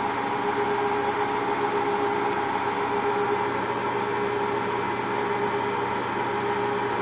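Metal lathe running steadily with a constant two-note hum as an end mill held in the tailstock is fed slowly into the spinning workpiece, plunge-cutting to open up a pre-drilled hole.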